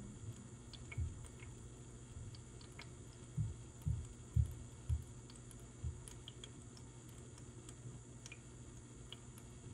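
Faint handling noise as a kitten wrapped in a towel is held still for a syringe injection. A few soft low thumps, four of them about half a second apart starting about three and a half seconds in, and scattered light clicks sit over a low steady hum.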